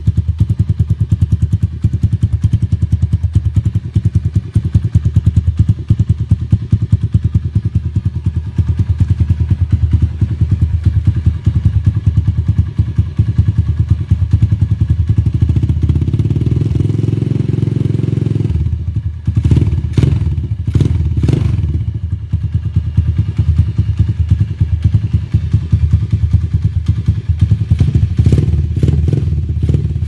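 Neptune 125 motorcycle running through an Akrapovic slip-on muffler, idling with a fast, even exhaust beat. About fifteen seconds in it revs up, then drops back sharply, with a few sharp cracks from the exhaust as it settles. A few more cracks come near the end.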